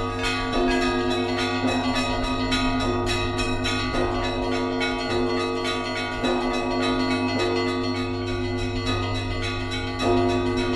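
Church bells ringing together: quick, repeated strikes of small high bells over a deeper bell that is struck again about once a second, all ringing on and overlapping.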